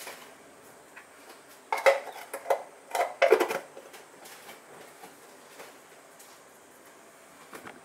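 Kitchenware being handled: a burst of clinks and knocks from about two to three and a half seconds in, with a few faint taps after it.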